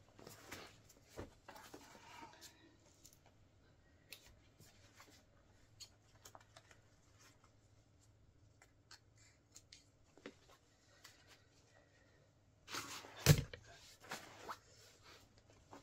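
Faint, scattered snips and rustles of a Wellensteyn Schneezauber jacket's fabric being cut with scissors and handled, with a louder burst of rustling and a sharp knock near the end.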